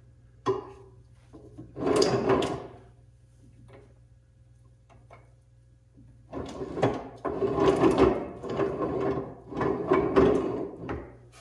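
Vevor 3-ton ratcheting arbor press being worked by hand, its metal ratchet, gear and ram clattering and sliding. There is a click just after the start, a short burst of rattling about two seconds in, then a longer stretch of clatter from about six seconds in until just before the end.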